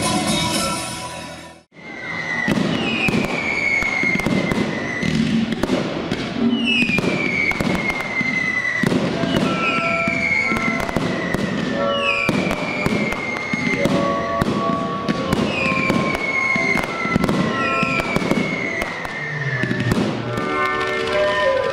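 Dance music cut off abruptly about two seconds in, then a fireworks display: a string of whistling fireworks, each a falling whistle about two seconds long, going off roughly every two seconds over sharp crackling pops and bangs. Music comes back in near the end.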